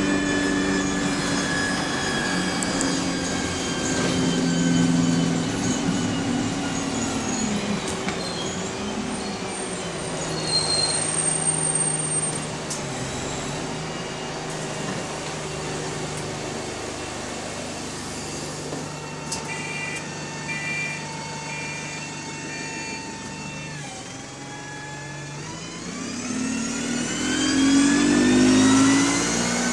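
Bus engine and Voith automatic gearbox, heard on board: the whine drops in pitch as the bus slows over the first several seconds, holds steady through the middle, then climbs as the bus pulls away and accelerates near the end.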